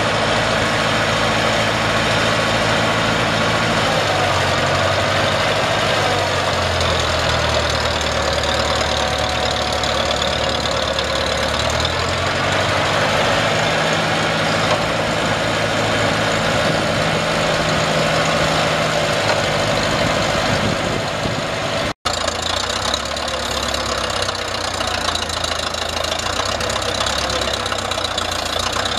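Gas engine of a truck-mounted auger drilling rig running steadily, its pitch stepping up and down a few times as the rig's hydraulic mast is lowered.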